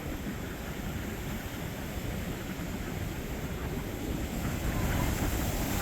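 Steady ocean surf and wind noise, swelling a little near the end.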